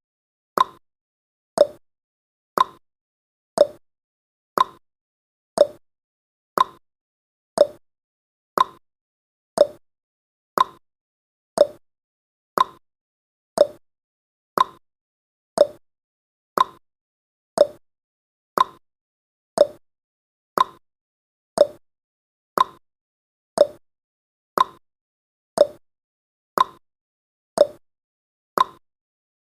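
Clock-style tick-tock sound effect of a countdown timer: one short tick each second, alternating between a higher and a lower-pitched tick.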